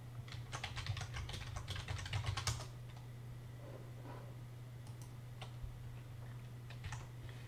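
Typing on a computer keyboard: a quick run of keystrokes over the first two and a half seconds, then a few scattered single clicks, over a low steady hum.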